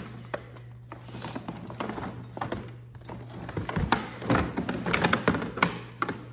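Boxes and packaging being opened and handled: irregular rustling with scattered taps and knocks, busiest in the second half, over a steady low hum.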